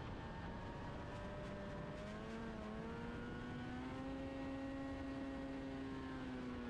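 Formula 500 race car's two-stroke, roughly 500cc snowmobile engine running steadily, heard from on board, its pitch climbing slowly from about two seconds in, holding, then easing off slightly near the end.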